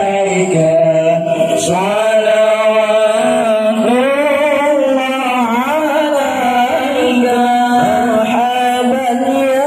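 Islamic devotional chanting (sholawat): voices singing a slow, ornamented melody with long held notes that waver and bend in pitch.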